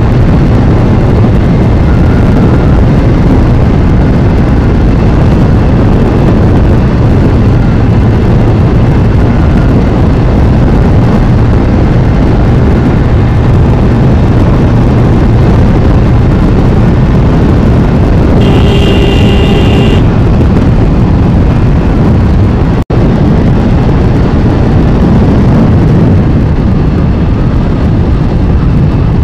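Bajaj Pulsar N160 single-cylinder motorcycle cruising at highway speed, a steady engine drone under heavy wind rush over the helmet or body microphone. A short high tone sounds about 18 seconds in.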